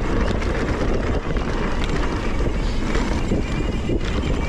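Mountain bike riding down a dirt trail: a steady rush of wind on the camera microphone over the tyres rolling on dirt, with scattered clicks and rattles from the bike over bumps.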